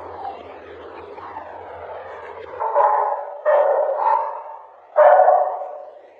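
A Great Dane barking: three loud barks, the last after a short pause.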